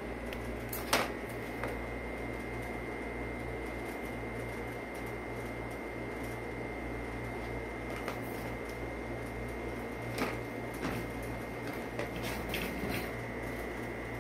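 Sharp plastic clicks and knocks from a plastic ball-track cat toy as a cat paws at it: one loud click about a second in, then several more near the end, over a steady hum.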